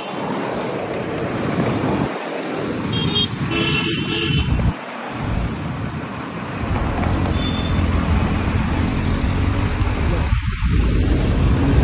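Traffic noise on a road: vehicle engines and tyres running steadily behind a moving truck chassis. A horn toots briefly about three to four seconds in.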